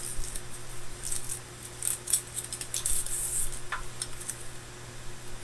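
Aluminium foil crinkling and rustling in irregular crackles as cut parts are handled and laid down on a foil-covered work mat.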